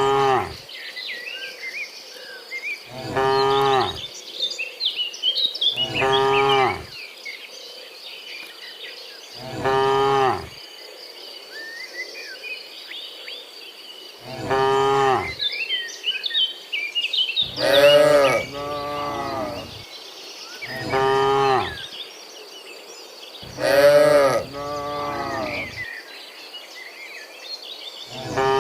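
Cattle mooing: about nine long, low calls, one every few seconds, with two cows calling over each other twice in the second half. Faint high chirping goes on behind them.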